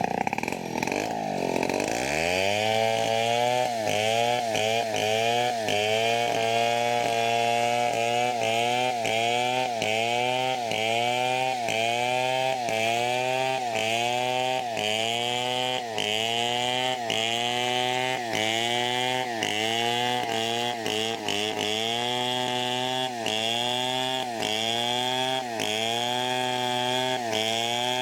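STIHL two-stroke chainsaw cutting teak under full throttle. The engine pitch drops and recovers about once a second as the chain bites and clears the cut, with a deeper bog in the first two seconds.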